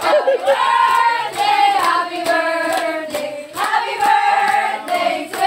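Voices singing held, gliding notes, with steady hand clapping about twice a second.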